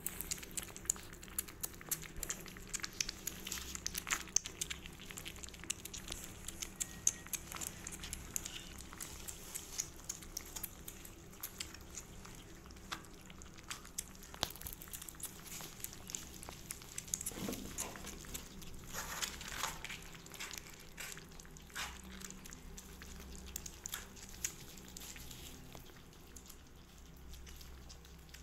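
Kittens scrambling about in a cardboard box: a steady stream of small clicks, taps and scratches from paws and claws on the cardboard, mixed with the crunching of dry cat food being eaten.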